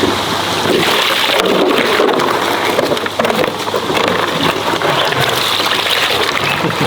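Water splashing and sloshing in a dense, crackling wash of noise, with many small splashes close together.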